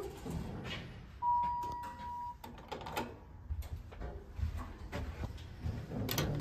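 A single steady electronic beep from the elevator, held for about a second. Scattered knocks and clicks follow, with a sharp click near the end as the car's floor button is pressed.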